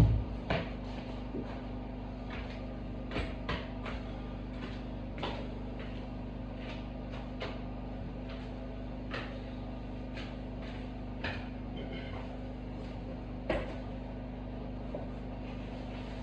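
Scattered light knocks and clicks, one every second or so, over a steady low hum; one sharper knock comes a little past three-quarters of the way through.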